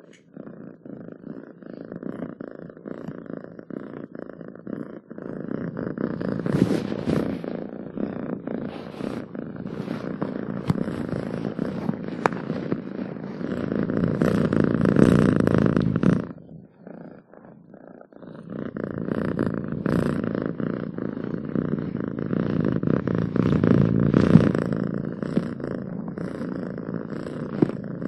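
Domestic cat purring, a steady rapid rumble that swells louder around the middle and again near the end, with a short break a little past halfway.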